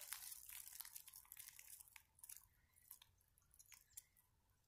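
Near silence: faint rustling and small ticks that fade out about two seconds in, then only a few isolated ticks.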